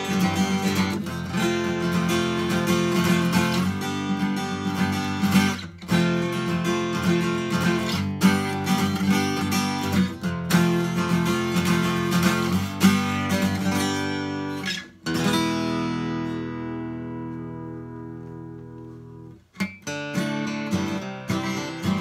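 Furch D32 SM dreadnought acoustic guitar strummed in chords, improvised. About two-thirds of the way in, a single chord is struck and left to ring out, fading for about four seconds before the strumming starts again.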